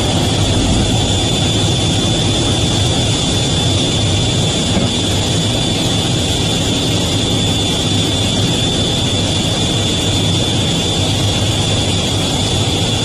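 Fighter jet's engines running steadily at high power, heard from inside the cockpit as the jet climbs out just after a carrier launch: a dense, even rumble with a steady high whine over it.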